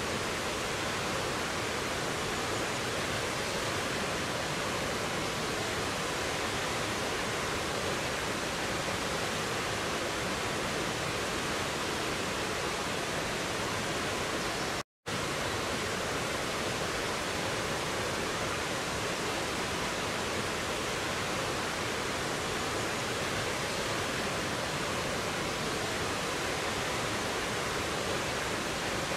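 Steady rushing of a rocky stream cascading over boulders, an even wash of water noise. It cuts out for a split second about halfway through.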